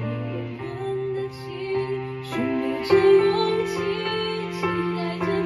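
A slow, tender song: a woman singing long held notes over sustained chords.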